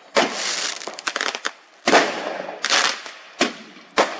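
Fireworks going off: a string of about six sharp bangs, spaced irregularly, with a quick run of crackles about a second in.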